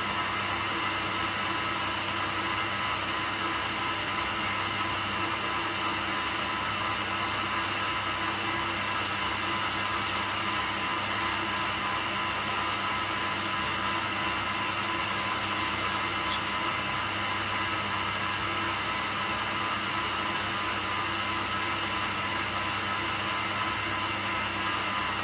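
Workshop lathe running steadily, with a constant motor hum and a few steady tones, while the male joint faces are cleaned up.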